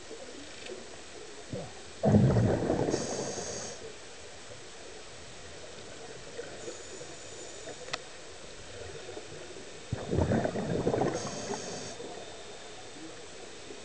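A scuba diver's exhaled breath bubbling out of the regulator underwater: two bursts of bubbles, each about two seconds long and about eight seconds apart.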